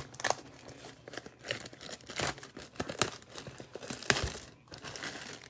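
Trading card box being opened: packaging crinkling and tearing in irregular crackles, with a few sharper clicks, the loudest about three and four seconds in.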